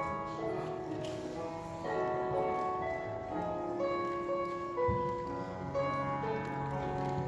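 Music: a melody of held notes that changes pitch every half second or so.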